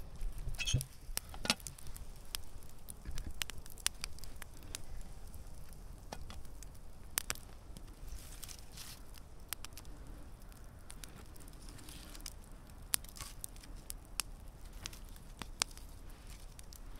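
Wood campfire of branches crackling, with irregular sharp pops and snaps and a few louder cracks in the first two seconds.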